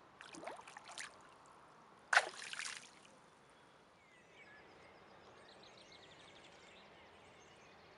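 Two splashes of water about two seconds apart, the second starting more sharply and louder, as a released carp is slipped back into the water and kicks away.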